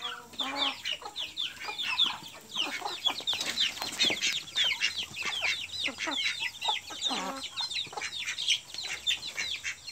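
Poultry chicks peeping nonstop: many short, high, falling peeps, several a second, with a few lower calls from the ducks about half a second in and again after seven seconds.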